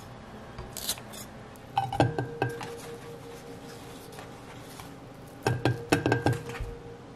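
Stainless steel mixing bowl being handled, clinking and clattering with a short metallic ring, in two brief bursts: about two seconds in and again later on.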